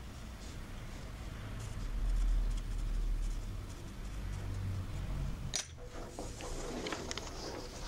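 Pencil lead scratching across a sheet of paper as a line is drawn, over a low rumble. About five and a half seconds in it breaks off sharply, and the rest is rustling and light taps as the paper is handled on the table.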